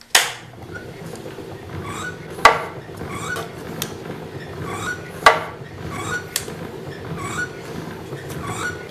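Homemade wooden air cylinder clacking sharply as its plunger is driven out by low-pressure organ air, two loud clacks and a few lighter ones, over a steady hum with soft puffs about once a second. The clacks sound forceful, though the cylinder puts out little force on this low-pressure air.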